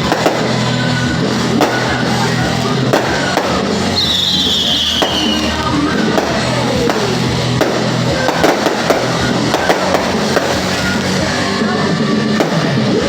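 Music playing, with the sharp bangs and cracks of fireworks going off over it throughout. A high falling whistle sounds about four seconds in.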